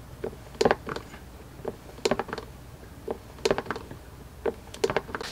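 Hand-operated fluid pump on a bottle of SAE 90 gear oil being worked by hand to fill a rear differential, giving a short click with each plunger stroke, a little over two a second and unevenly spaced.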